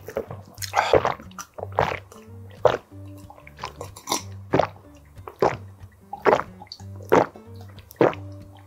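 A person gulping water from a glass close to the microphone: a steady series of loud wet swallows, a little under one a second, with background music underneath.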